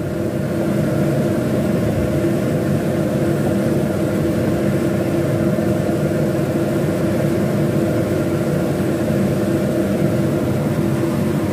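A machine's steady hum, with several steady low tones and a hiss above them.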